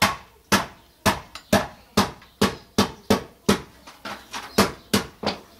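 Hammer blows: about a dozen sharp knocks at roughly two a second, some lighter than others.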